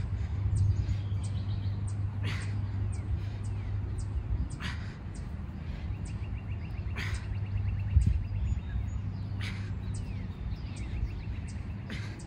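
A man's heavy breaths during push-ups, one forceful breath about every two and a half seconds, over a steady low hum, with birds chirping.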